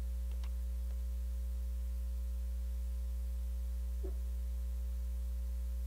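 Steady electrical mains hum with no speech, with two faint brief sounds, one near the start and one about four seconds in.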